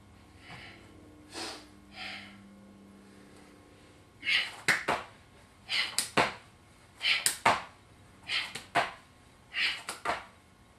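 Kneeling plyometric push-ups on an exercise mat. Starting about four seconds in, each rep brings a sharp exhale and then a quick double slap of the hands, about five reps roughly 1.3 seconds apart. Before that there are a few softer breaths.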